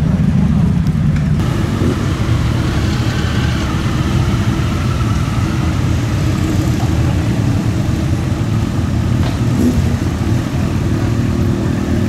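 Motorcycle engines running, a steady low rumble.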